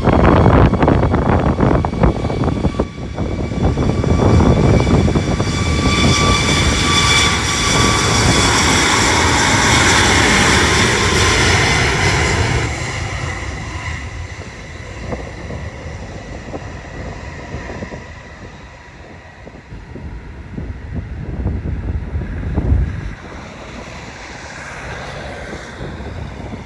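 Jet airliner passing close on its landing approach: engine roar with a steady high-pitched whine, loud for about the first half, then fading away into a low rumble.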